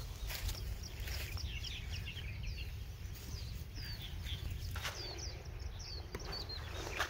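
Small birds chirping in many quick, short, sliding calls over a steady low rumble, with a couple of brief thumps about five and seven seconds in.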